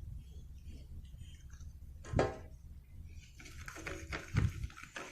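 Toothpaste being added to a bowl of slime mixture: light clicks and clatter of the bowl and utensils, with a short pitched voice-like sound about two seconds in, over a steady low hum.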